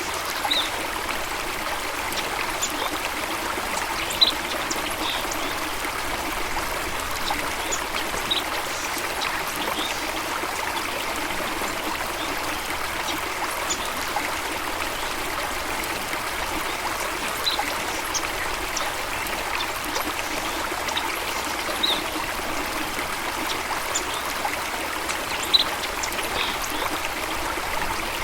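Stream water running and trickling steadily, with short high chirps scattered through and a couple of brief sharp ticks.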